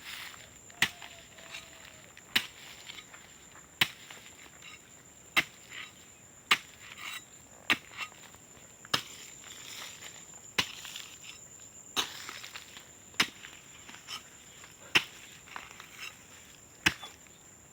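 A hand digging tool chopping into the ground to open planting holes for cassava cuttings, about a dozen strikes at roughly one every second and a half. Insects keep up a steady high-pitched buzz underneath.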